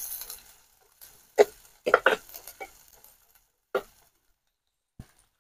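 A steel ladle stirring chopped onions in oil in a clay pot: a handful of short, separate scrapes and knocks of the ladle against the pot, with faint sizzling that dies away in the first half second.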